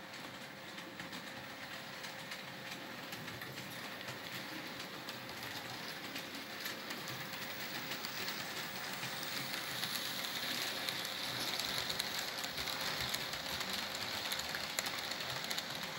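Märklin H0 model steam tank locomotive and its passenger coaches running on the track, a steady rattle with many small clicks from the wheels and track. It grows louder as the train comes close, loudest over the last few seconds as the coaches pass.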